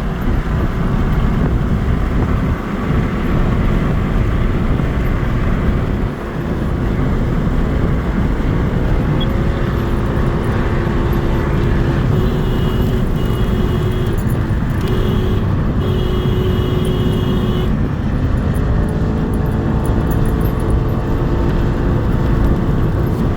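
Strong desert wind buffeting the microphone, with car traffic on the road. Near the middle, a steady whine sounds on and off for several seconds.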